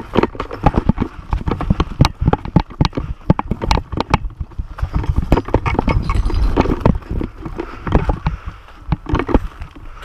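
Footsteps of a person running on rough ground: quick, uneven footfalls with scuffing, dense throughout.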